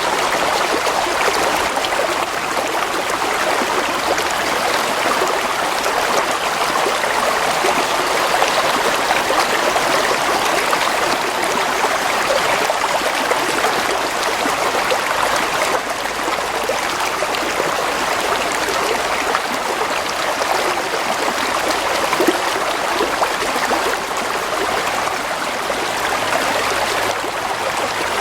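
A stream or small river flowing steadily, an even rushing and trickling of water over stones.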